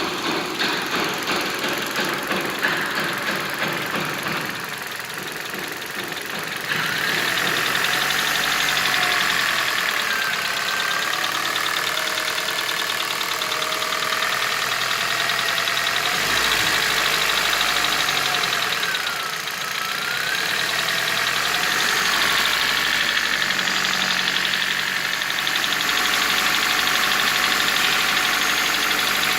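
Kia Ceed engine running with a knock, the fault the car is to be repaired for. The first few seconds carry a regular knocking pulse. About seven seconds in the sound gets louder, with a whine that dips and rises in pitch.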